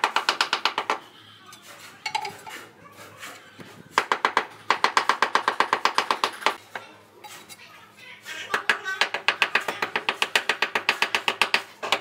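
Butt end of a hammer's wooden handle tapping ceramic floor tiles in quick, even runs of taps, several a second, bedding the tiles into the mortar. There are three runs: one at the start, one from about four seconds in, and one from about eight and a half seconds in to the end, with pauses between them.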